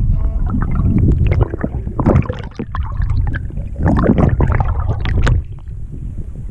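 Muffled gurgling and sloshing water heard through a submerged action camera being moved through the river, with a heavy low rumble and two louder surges. It turns quieter near the end as the camera comes up to the surface beside the boat's hull.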